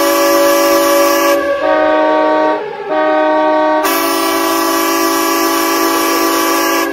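Hockey arena goal horn blasting a steady chord of several held tones. It breaks briefly about two and a half seconds in, then sounds again.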